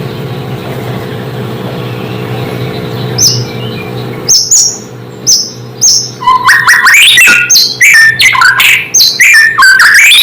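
White-rumped shama (murai batu) singing: a few sharp, high whistled notes from about three seconds in, then from about six seconds a fast, loud run of varied notes. A steady low hum lies under the first few seconds.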